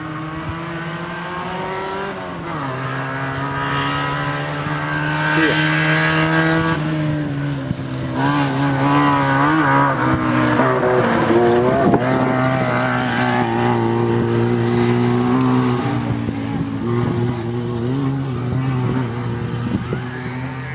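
Rally car engine running hard on a gravel stage. Its note drops sharply several times and then holds steady. Gravel and tyre noise are loudest in the middle, as the car comes close.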